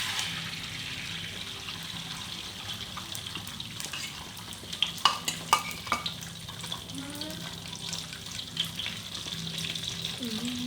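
Three beaten eggs sizzling as they fry in hot oil in a pan. A few sharp knocks, like a utensil against the pan, come about five to six seconds in.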